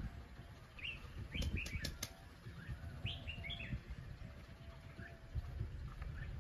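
Faint outdoor ambience: scattered short, high bird chirps over a low wind rumble, with a few sharp clicks about one and a half to two seconds in.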